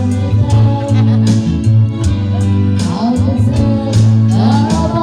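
A song with singing over guitar, bass and a steady beat, played back through a Samsung Bluetooth speaker.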